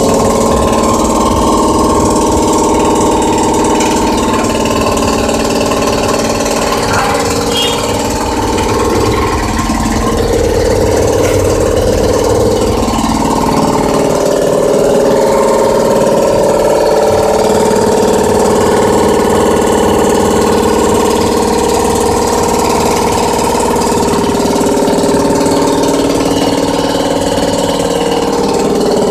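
Anest Iwata CROWN 2 hp belt-driven reciprocating air compressor running steadily, its electric motor driving the piston pump.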